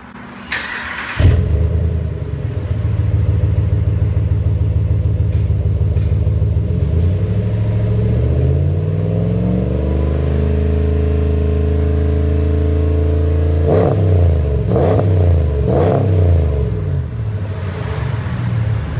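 Exhaust of a 5.7-litre Hemi V8 through a Flowmaster 44 Series muffler: the engine starts about a second in with a loud flare and settles to idle. The pitch then rises smoothly and is held at about 2000 RPM. Three quick throttle blips follow, and it drops back to idle near the end, with an aggressive tone.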